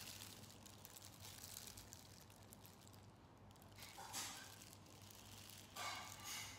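Near silence: quiet room tone with a faint steady low hum, broken by two brief soft noises about four and six seconds in.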